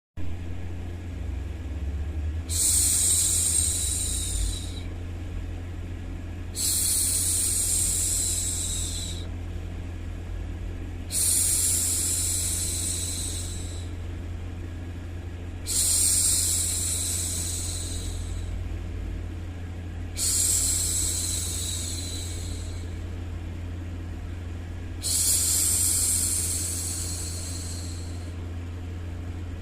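A woman's voice making long, high hissing "shhh" hushes to soothe a baby, six of them, each about two seconds long and repeating about every four and a half seconds, over a steady low white-noise hum.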